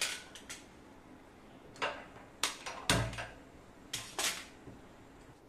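Stainless steel pressure cooker being closed up and its whistle weight set on the vent: a string of short metal clicks and knocks, about seven in all, one with a dull thump near the middle.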